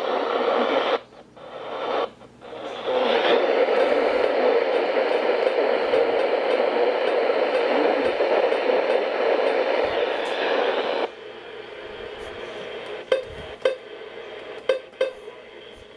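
Radio static: a steady hiss from a weather radio receiver, broken off twice briefly near the start, then dropping suddenly to a quieter hiss about eleven seconds in, with a few sharp clicks.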